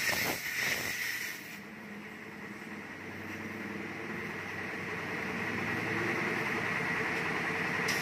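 Compressed air hissing steadily through a tire inflator with a dial gauge into an off-road tire's valve stem. The hiss is brighter and sharper for about the first second and a half, then settles to a duller, even rush.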